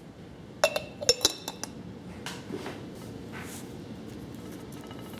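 Hard objects, such as dishes or glassware, clink together several times in quick succession about a second in, each with a short ring. Quieter handling and rustling sounds follow.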